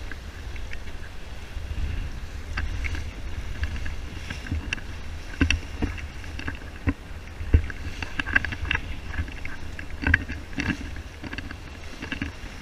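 Sailboat under sail in open-ocean trade winds: steady wind rumble on the microphone over the rush of water along the hull, with irregular knocks and slaps as waves strike the boat.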